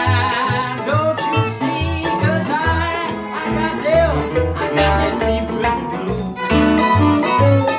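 Acoustic blues band playing an instrumental passage: resonator guitar and acoustic guitar over steady bass notes about two a second, with a melody line that bends and slides in pitch.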